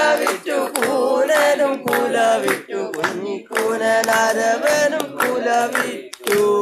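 Group of voices singing a Malayalam folk song in chorus, unaccompanied, with short breaks between phrases.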